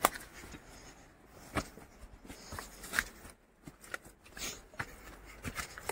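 Irregular footsteps crunching on a path of dry grass and twig litter, with brush rustling past. A sharp click right at the start is the loudest sound.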